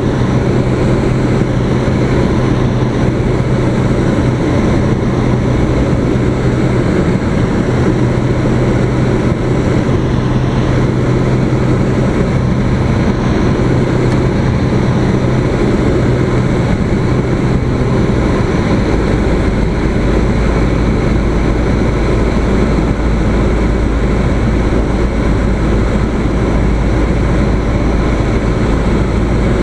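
Single-engine light airplane's piston engine and propeller running steadily, heard inside the cabin, with a constant drone and rush of air. About two-thirds of the way through, the low engine note drops.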